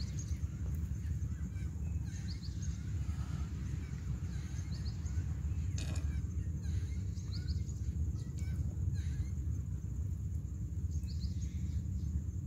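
Outdoor ambience: a steady low rumble on the microphone, with faint short bird chirps in pairs every few seconds and a single sharp click about six seconds in.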